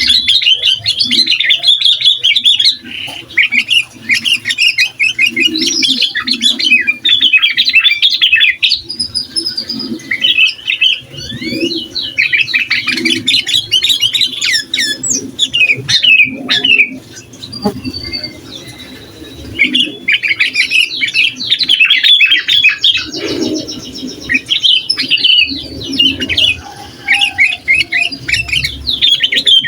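Sooty-headed bulbul (kutilang) singing in full voice, the 'gacor' song that stirs up rival bulbuls: long runs of quick, chattering notes in phrases, broken by a few short pauses.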